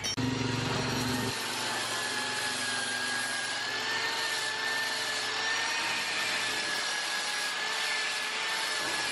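Steady whirring machine noise with a faint, slightly wavering high tone; a low hum underneath cuts off just over a second in.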